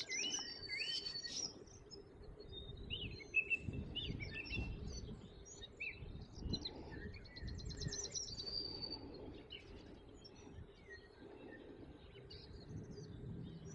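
Songbirds singing in the riverside trees: scattered short chirps and whistles with a couple of fast trills, one at the start and one about eight seconds in. Underneath is a faint low rumble of light wind.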